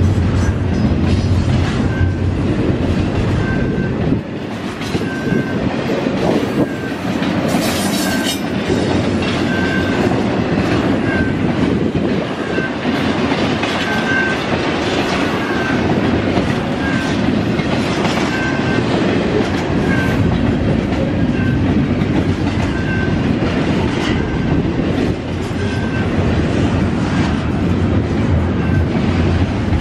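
Double-stack intermodal container well cars rolling steadily past close by, their steel wheels running and clicking on the rails, with wind rumbling on the microphone. A short high squeak repeats about once a second.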